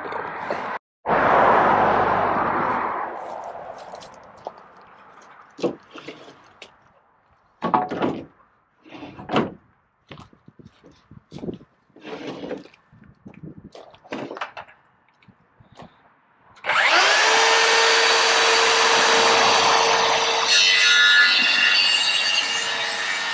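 Scattered knocks and clatter of wooden boards being handled. About two-thirds of the way through, a cordless circular saw starts and cuts steadily through a wooden board, its motor holding a constant whine under the noise of the blade in the wood.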